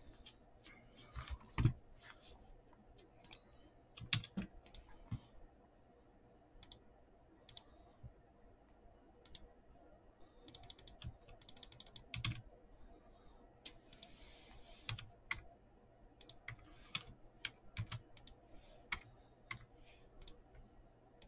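Faint typing on a computer keyboard: scattered single keystrokes and short quick runs of keys, with pauses between.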